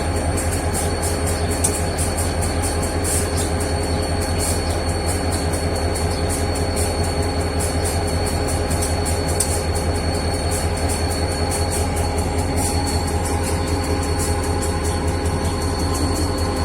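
EMD 16-645-E3 turbocharged V16 two-stroke diesel of an SD40-3 locomotive running steadily: a deep, even throb with a thin steady high whine over it.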